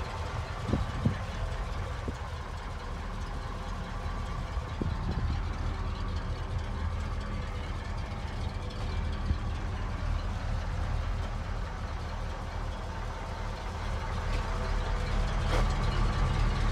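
A 1980 International four-wheel-drive truck's engine idling steadily, warmed up after about ten minutes of running. There are a couple of light knocks about a second in, and the idle grows a little louder near the end.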